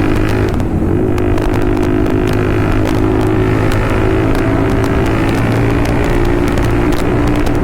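Hero Xtreme 250R's single-cylinder engine running at fairly steady revs through an aftermarket exhaust, with many sharp crackles and pops scattered through the sound.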